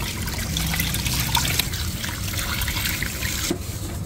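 Kitchen tap water running and splashing over a whole tilapia as it is rinsed by hand in a stainless steel sink; the water sound stops about three and a half seconds in.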